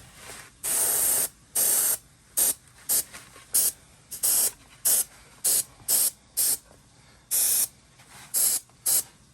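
Paint being sprayed onto a model in a dozen or more short hissing bursts of uneven length, a few of them held for about half a second.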